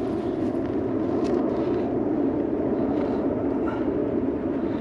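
Log rocket stove burning with a steady rushing sound, with faint light crackles.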